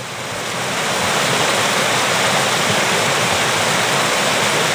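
Small waterfall on a rocky stream: water rushing steadily over the rocks into a pool, growing louder over the first second and then holding steady.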